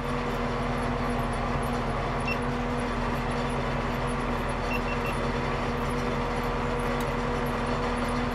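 Landini 65 Blizzard tractor's diesel engine running steadily at an even pitch while pulling a roller across a field.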